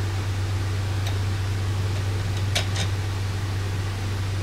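Steady low hum of workshop background noise, with a few light clicks from parts being handled at the top of a motorcycle rear shock held in a vise: one about a second in, then two close together about two and a half seconds in.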